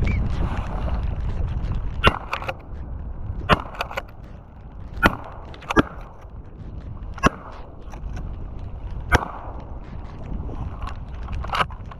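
Wind buffeting the microphone, with about ten sharp, irregular clicks or taps scattered through it.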